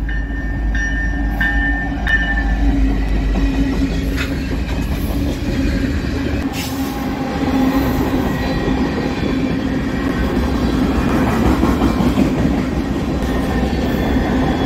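Diesel-hauled freight train passing close by: a deep diesel locomotive rumble that eases after the first few seconds, then tank cars and covered hoppers rolling past with a steady rush of wheels on rail. A thin high tone sounds through the first couple of seconds.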